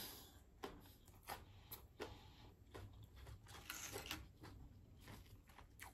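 Near silence with faint, irregular soft mouth clicks of a person chewing food, about two a second.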